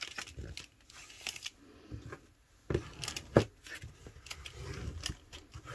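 Paper rustling and sliding as a flap is folded over and pressed down flat by hand, with a few short crisp crackles of the paper about three seconds in.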